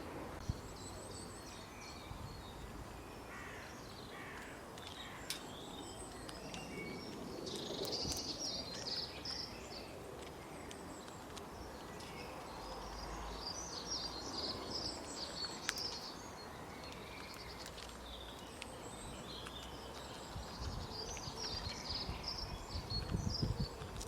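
Small birds chirping in several short bursts of rapid, high notes over a steady outdoor background, with a few isolated sharp clicks.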